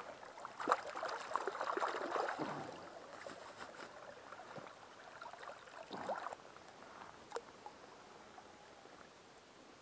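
Light splashing and trickling of shallow river water stirred by hands, busiest in the first couple of seconds, with another short splash about six seconds in.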